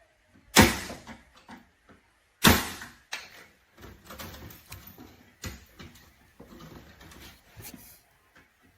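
Two loud bangs about two seconds apart, each with a short ringing tail, followed by lighter knocks and handling noise.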